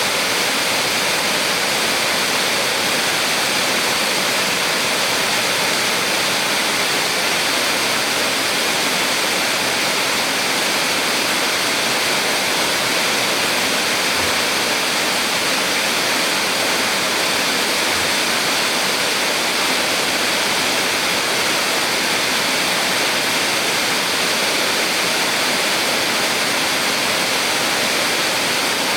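Small waterfall on a mountain stream: water rushing and splashing, steady and unbroken.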